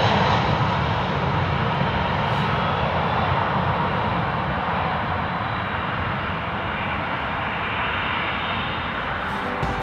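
Jet airliner's engines running with a steady rushing noise that slowly fades.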